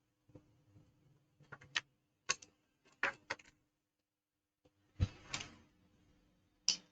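Irregular sharp clicks and light knocks of tools and small parts being handled on a hard workbench, with a heavier knock about five seconds in, over a faint steady electrical hum.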